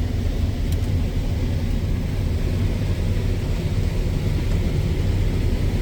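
Combine harvester running steadily while harvesting corn, heard from inside the cab: a constant low rumble, with one small click under a second in.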